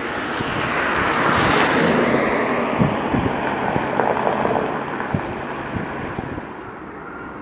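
Jet airliner engine noise swelling to a peak about a second and a half in and then fading. Wind buffets the microphone underneath.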